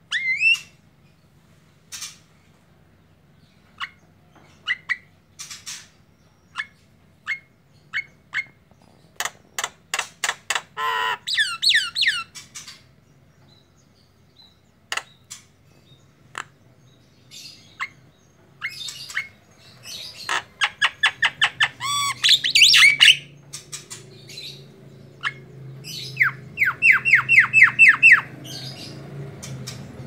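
Male Javan myna calling in a loose, varied run: sharp single clicks and short notes, bursts of harsh squawks, and near the end a quick string of about eight even whistled chirps.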